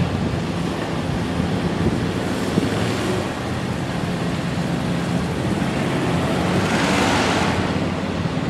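CSX freight train of container cars rolling by, a steady low running noise with wind on the microphone. About seven seconds in, a road vehicle passing close by swells up and fades.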